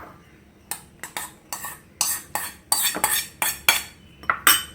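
Cutlery and a steel container clinking and scraping: about ten short, sharp strokes in quick succession, as food is served out.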